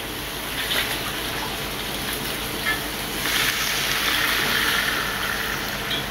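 Water running from a kitchen tap into a plastic bowl, then poured from the bowl into a pot of stewing fish and vegetables, with the pour louder from about three seconds in. This is water being added to brown stew fish to make its gravy.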